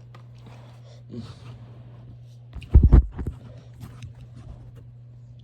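Handling noises from the fan and its cord being moved: scattered clicks and rustles, then a heavy low thump with a couple of knocks about three seconds in, over a steady low hum.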